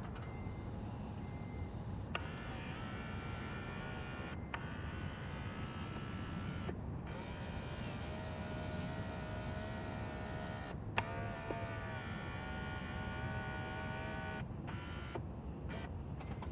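Acura TL power side-mirror actuator motor whining as it tilts the mirror glass. It runs in stretches of a few seconds, stopping and restarting several times. The newly replaced actuator runs without clicking.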